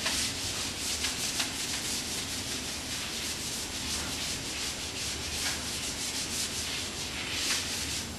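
Whiteboard eraser wiping dry-erase marker off a whiteboard in repeated strokes, a steady rubbing hiss.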